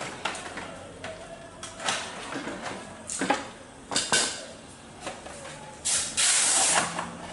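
Handling noise from a plastic Panasonic PABX unit being fitted against a wall among bundled cables: scattered clicks and knocks, a few sharp ones about three and four seconds in, then a harsh hiss-like scrape lasting about a second near the end, the loudest part.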